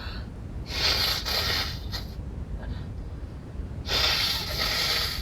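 A woman with a wet head cold making two long, noisy snorts through a congested nose, each about a second long, about three seconds apart.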